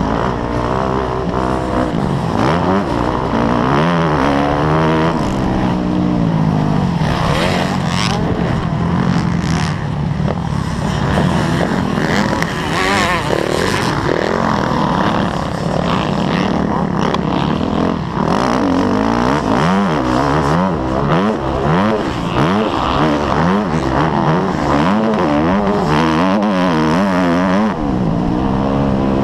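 Motocross dirt bike engine heard close up from the rider's helmet, revving up and down again and again as the throttle is opened and closed around the track, with quicker, shorter rev swings in the second half.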